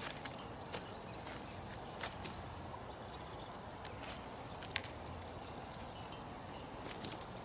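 Scattered light clicks and taps from fishing tackle being handled, a carbon pole section and landing net knocked against the seat box, over a steady outdoor background hiss.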